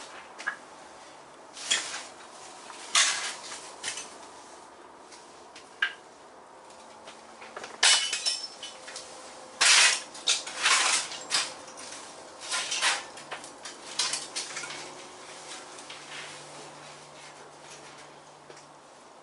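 Irregular metallic clanks, knocks and short rattles as steel panels, clamps and tools are handled on a bare classic Mini bodyshell, about a dozen in all, the loudest about eight and ten seconds in.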